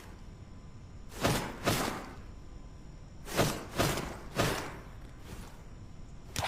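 Hatchet blows: about six sharp strikes at uneven intervals, several coming in quick pairs about half a second apart, each with a short fading tail.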